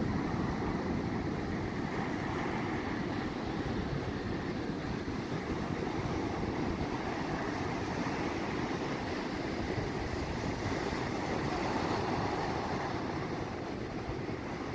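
Ocean surf breaking and washing up the beach, with a strong wind buffeting the microphone in a steady noise heaviest in the lows.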